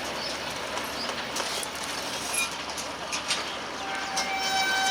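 Express passenger train rushing past at speed, its carriages rattling with clattering wheels on the rails. About four seconds in, a steady high-pitched tone starts and holds.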